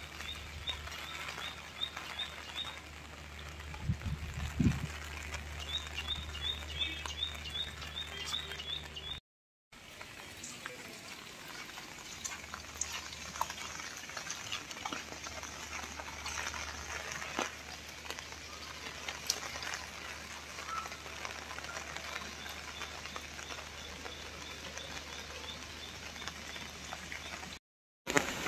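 Steady rain pattering with scattered drips and ticks over a low steady rumble. A rapid, high-pitched chirping comes and goes in short runs. The sound cuts out to silence briefly about a third of the way in and again near the end.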